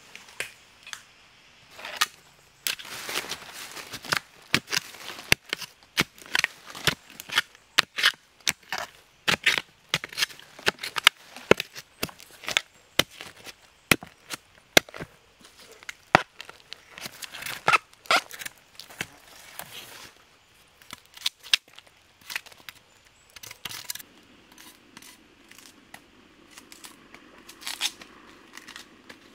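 Machete blade chopping into soil and the base of a wild bamboo shoot to dig it out. The strikes are sharp and irregular, about two a second, and thin out near the end.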